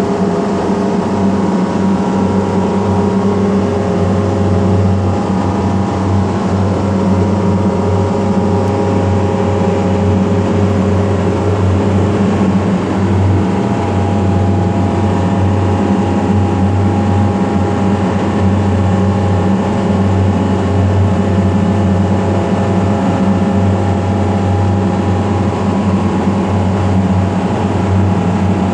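Steady, loud machine hum with a deep drone and a layer of higher steady tones, unbroken throughout.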